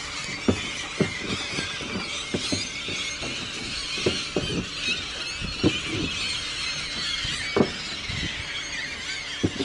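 A large flock of gulls calling over one another without a break, a dense chorus of high squealing cries. About a dozen short thumps close by stand out above it.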